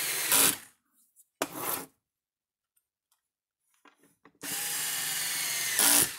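Cordless drill-driver driving screws into a plastic fence-charger case. It runs steadily, stops about half a second in after a brief louder burst, and gives a short run about a second later. After a pause of a couple of seconds it runs steadily again for about a second and a half, ending in another louder burst.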